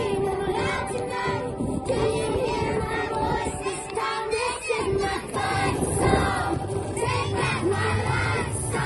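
A large group of children singing and shouting together over music.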